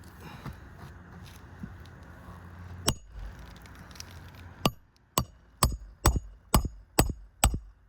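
Hammer blows on a shingle roof: one strike about three seconds in, then a steady run of sharp strikes at about two a second, as a tool is driven in to work a roofing nail loose.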